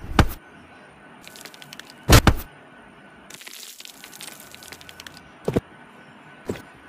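Four sharp, loud thumps, about a second in, twice around two seconds, and twice more near the end, with stretches of fine crackling in between.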